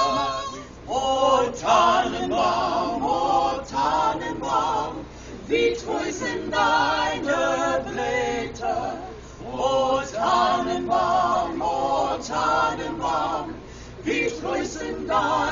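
A small group of carolers singing a Christmas carol a cappella in mixed men's and women's voices, in phrases a few seconds long with brief breaks between.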